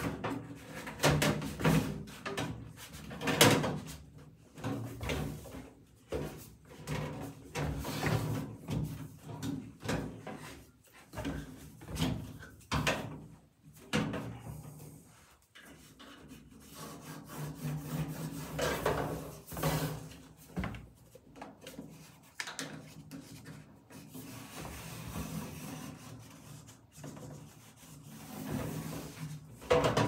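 Galvanized steel washtub being handled on a wooden countertop frame: irregular knocks and scrapes of metal against wood, with the scratching of a carpenter's pencil marking around the tub.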